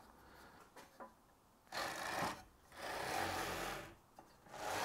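Linear-guide bearing blocks carrying an aluminium carriage plate, pushed by hand along steel linear rails: three sliding strokes of about a second each, after a couple of faint clicks. The blocks run tight against the rails, so the travel is not fully smooth.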